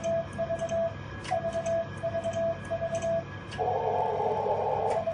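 Transceiver CW sidetone, a steady tone of about 700 Hz keyed in runs of even dashes, about three a second, while the rig drives the Acom 1010 HF linear amplifier at around 650 watts, with faint clicks as the keying starts and stops. Near the end the dashes stop and a rush of hiss takes their place for about a second and a half.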